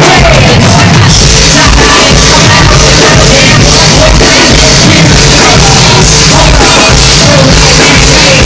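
Loud hip-hop music with a heavy bass beat playing over a venue's PA system.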